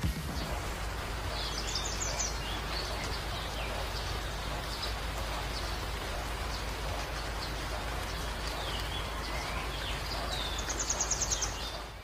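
Shallow creek rippling over pebbles, a steady rush of running water, with birds chirping now and then and a quick trill near the end, fading out at the close.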